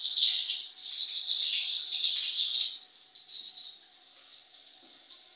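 Water running from a newly installed bath-shower mixer, a steady high hiss that cuts off suddenly about halfway through as the lever is turned.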